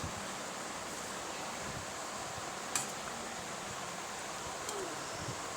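Steady background hiss of room noise, with a single light click about three seconds in.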